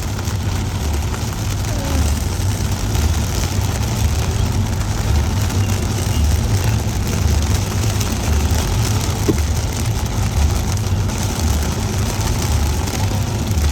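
Heavy monsoon rain and road spray around a vehicle driving through it: a loud, steady, dense hiss over a continuous low rumble of the vehicle on the wet road.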